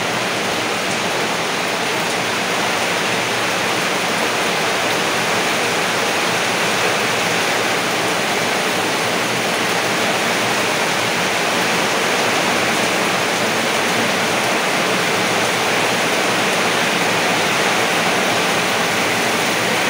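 Heavy rain pouring steadily, an even, unbroken hiss of a downpour.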